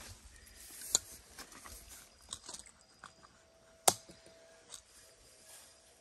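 Hands working a PVC pipe, pushing a fitting into a hole cut in it: two sharp clicks, about a second in and just before four seconds in, among small scattered taps and scrapes.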